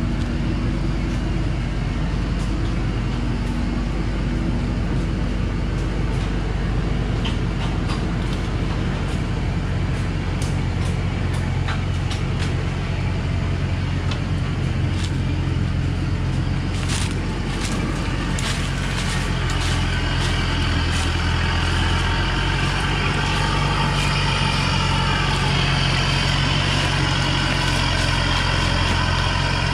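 Thaco Forland truck's diesel engine running steadily at low speed while it hauls a heavy load of acacia logs over a rough dirt track. It gets a little louder and harsher in the last third.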